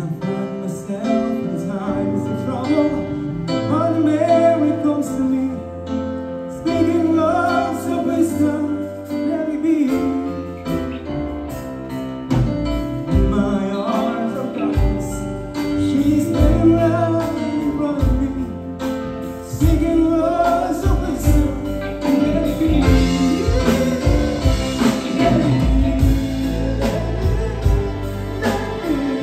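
A four-piece live band plays a song on electric guitar, bass guitar, drum kit and keyboard, with a melodic line over the top. The beat gets heavier about twelve seconds in.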